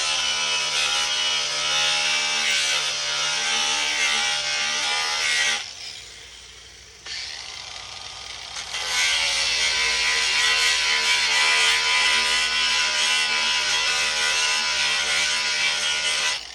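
Angle grinder cutting into a plexiglass sheet, a loud high-pitched whine. It stops about five and a half seconds in and starts again about three seconds later, running until near the end.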